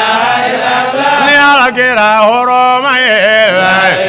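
A man's voice chanting an Islamic dhikr into a microphone, in long melismatic notes whose pitch slides up and down, with a brief break about halfway through.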